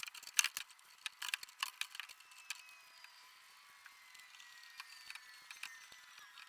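A quick run of light clicks and crackles for the first two and a half seconds, then only scattered faint ticks.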